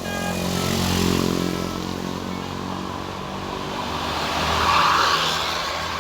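Bus engine running with road noise, swelling about a second in and again, loudest, near five seconds. The last notes of a Basuri musical horn die away at the very start.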